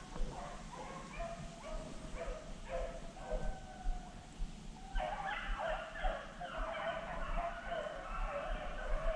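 A pack of rabbit-hunting hounds baying and yelping while running a rabbit. Several voices overlap, and the chorus grows fuller and louder about five seconds in.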